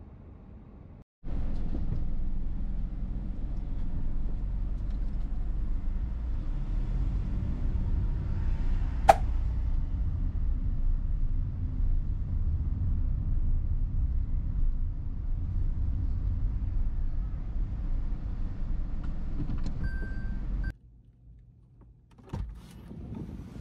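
Steady low rumble of road and engine noise heard inside a moving car's cabin, with one sharp click about nine seconds in. The rumble starts abruptly about a second in and cuts off near the end, leaving a quieter stretch with a single knock.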